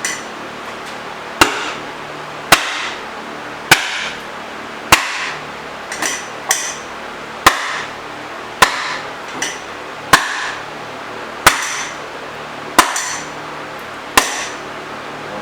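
Steady hammer blows on a rusted-in lathe tailstock, about one every second and a bit, each with a short metallic ring, with a few lighter taps between them, working the seized tailstock loose along the ways.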